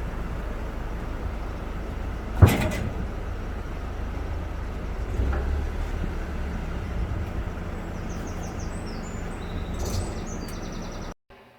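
A vehicle engine running steadily, with one loud clang of scrap metal about two seconds in and a softer knock a few seconds later. A few faint high squeaks follow before the sound cuts off suddenly near the end.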